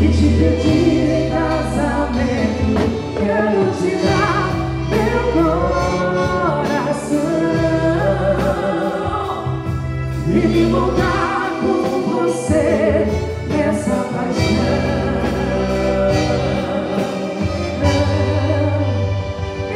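Music with singing over a band, a deep bass note held and changed every second or two.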